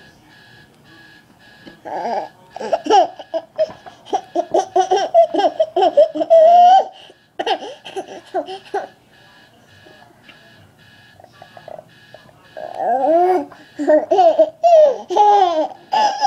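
Five-month-old baby belly-laughing in two long runs of laughter, the first starting about two seconds in and the second a few seconds after a pause. Between the runs, a steady electronic beeping goes on at about two to three beeps a second.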